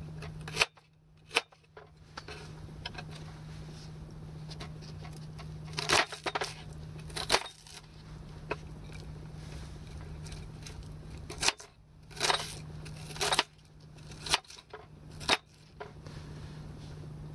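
Knife chopping red onion on a wooden chopping board: irregular sharp knocks of the blade on the board, some in short clusters, over a steady low hum.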